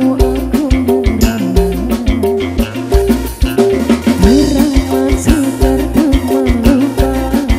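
Dangdut koplo band playing: hand drums and a drum kit keep a brisk, driving beat under a sliding lead melody, with bass and guitar.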